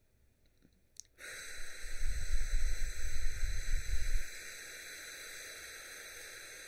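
After about a second of quiet while the breath is held, a slow, steady exhale through pursed lips begins as a hiss of air close to the microphone. For the first few seconds the breath stream buffets the microphone with a low rumble, then it settles into an even hiss. It is the long controlled out-breath of a counted breathing exercise (inhale four, hold two, exhale eight) for building lung capacity.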